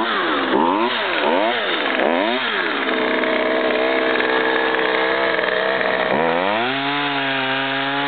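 Craftsman 42cc two-stroke chainsaw revved up and down several times. It then runs at a steady, lower pitch for about three seconds as the chain cuts into a log, and near the end climbs to a higher steady pitch at full throttle.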